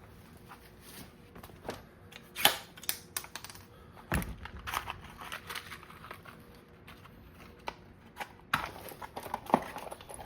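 Scattered metal clicks and taps from handling a Ramset .22 powder-actuated nailer, most likely while it is reloaded with a nail and charge. A dull knock comes about four seconds in.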